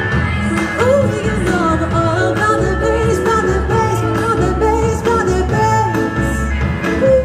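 Pop song playing: a sung melody over instruments with a steady bass beat.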